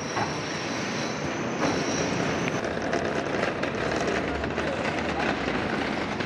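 Steady city street noise: a continuous rumble and hiss of heavy traffic, with scattered clicks and a faint high squeal near the start.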